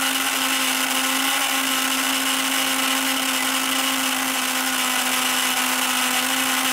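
Small electric motor of a toy roto painting (spin-art) machine running steadily on its slow setting, spinning the paint card: an even hum with a steady whine.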